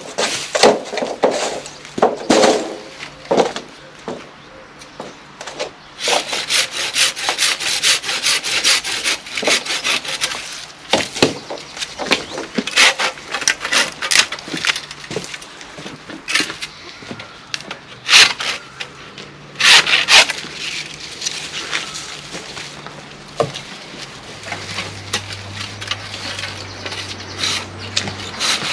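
Hand saw cutting conifer branches: runs of quick back-and-forth rasping strokes through the wood, broken by pauses, with a couple of louder sharp knocks about two-thirds of the way through.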